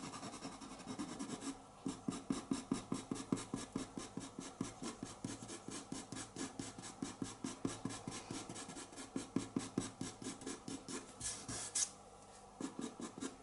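Pastel pencil scratching across pastel paper in quick, short, even strokes, about four a second, hatching in fur. The strokes pause briefly near the end, then a few more follow.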